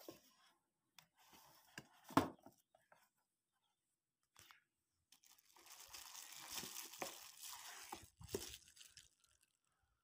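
Bubble wrap and cardboard packaging of a microphone being handled: scattered crinkling and rustling, with a sharp knock about two seconds in and a denser stretch of crinkling from about five and a half to nine seconds.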